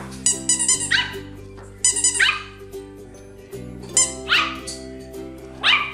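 A tiny Yorkshire terrier puppy barking in short, high, falling yips, about four of them, over background music.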